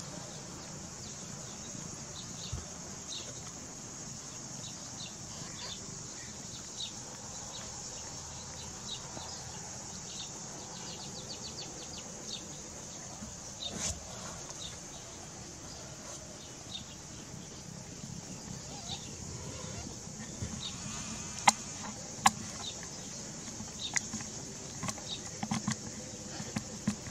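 Mother cat licking her newborn kittens: a string of soft, short wet licking sounds over a faint steady hiss, with a few sharp clicks in the last few seconds.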